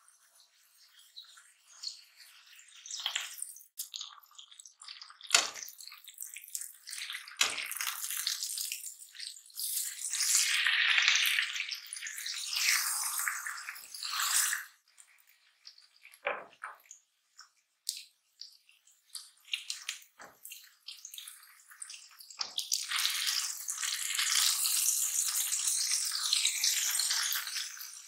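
Pork tocino sizzling in hot oil in a frying pan, the sizzle swelling in bursts and loudest near the end, with several sharp clicks of metal tongs against the pan as the meat is turned.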